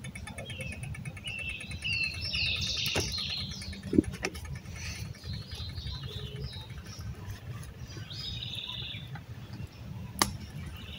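Birds chirping and calling over a steady low rumble, with a few sharp pops from a small twig fire crackling, the loudest about four seconds in.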